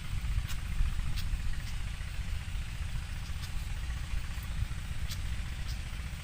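Pied fantail giving short, sharp high chip calls, about half a dozen spaced irregularly, typical of a parent agitated near its nest. A steady low rumble runs underneath.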